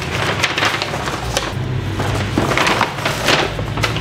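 Cardboard and stiff paper being handled: box flaps and a brown paper bag rustling and crinkling in a run of short, uneven scraping bursts.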